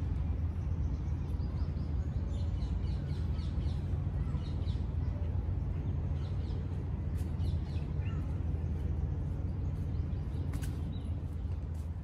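Small birds chirping in short quick series of high notes, over a steady low rumble of distant city traffic.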